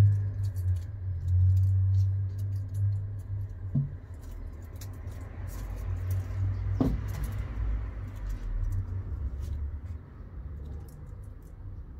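Light clicks, taps and scratches of a kitten's claws and paws batting a small object across a tiled floor, over a low hum that drops away about four seconds in.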